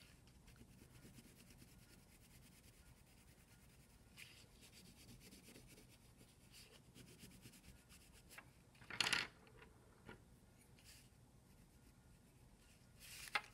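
Faint scratching of a coloured pencil rubbing back and forth on crumpled paper as an area is coloured in, with a brief louder rustle about nine seconds in.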